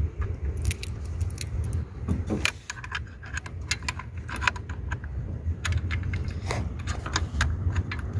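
Irregular light metallic clicks and clinks of hand tools and loosened bolts while an EGR valve is being unbolted, over a steady low rumble.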